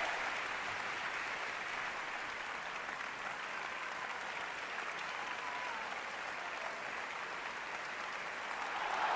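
Audience applauding steadily, a dense even clatter of many hands. It swells louder near the end.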